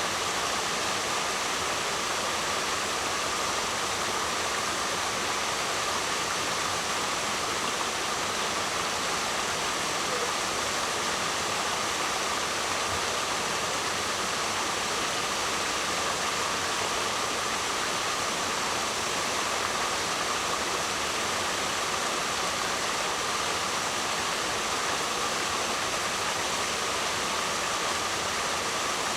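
Waterfall: a steady, unbroken rush of falling water, with no change in level.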